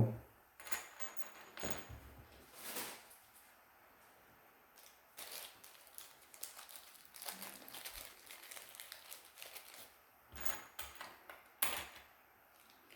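Small metal flathead screwdriver bits being handled and set down, giving scattered light clicks and clinks, with a sharper click near the end.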